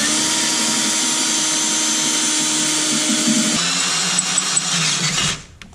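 Cordless drill running steadily under load as a bit bores through the metal jack mounting bracket and trailer frame. Its pitch steps down about two-thirds of the way through, and it stops shortly before the end.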